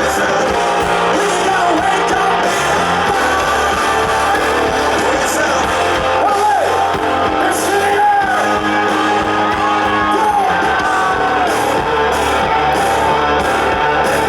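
Live hard-rock band playing loud with distorted electric guitars, bass and drums, a voice singing or shouting over it, recorded from the crowd.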